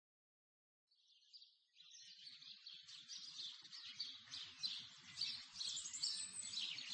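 Birdsong: several birds chirping, fading in from silence about a second in and growing gradually louder.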